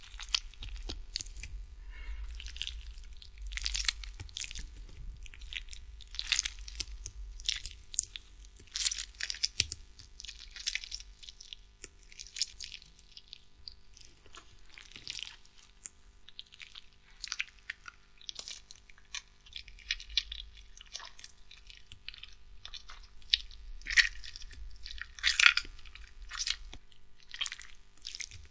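A ripe tomato being squished and squeezed by hand: irregular wet squelches and crackles of bursting, slimy flesh, coming in uneven bursts.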